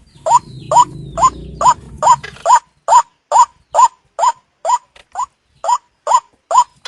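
White-breasted waterhen (ruwak-ruwak) lure call: a fast, even series of short rising notes, about two a second, of the kind played to draw the birds in for hunting. A low rumbling noise runs under the first two seconds or so.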